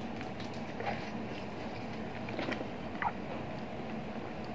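Quiet eating sounds: a few soft clicks and crackles of a balut (boiled fertilized duck egg) shell being picked off by hand, and faint chewing, over a steady low background hum.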